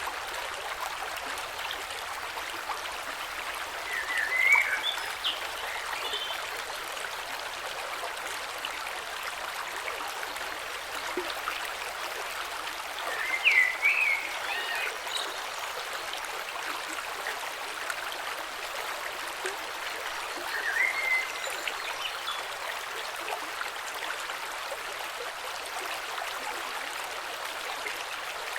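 Gentle creek flowing steadily over stones, a continuous rushing babble of water. Three times, about every eight seconds, short chirping calls from a small animal rise above it.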